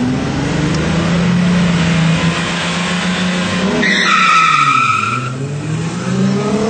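Car engine held at steady revs, then a high tire squeal of just over a second about four seconds in as the car launches from the start line, followed by the engine rising in pitch as it accelerates away.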